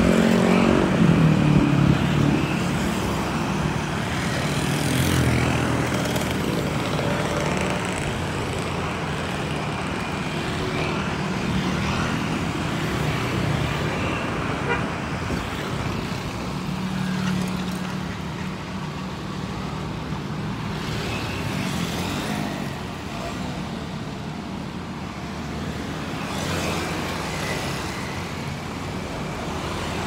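Steady road traffic, mostly motor scooters and cars passing close by, their engines swelling and fading as they go. Just at the start a loud engine passes with its pitch falling as it goes by, and another passes about seventeen seconds in.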